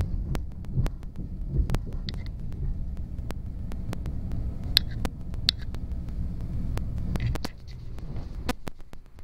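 CTA 2600-series rapid transit cars rumbling as they run along a station platform, with scattered sharp clicks throughout. The rumble drops off about seven and a half seconds in, as the train slows into the station.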